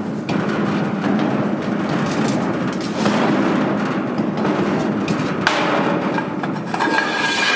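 A vehicle engine runs steadily under metal knocks and rattles from a livestock trailer and loading ramp being lined up. A high pitched sound joins about five and a half seconds in.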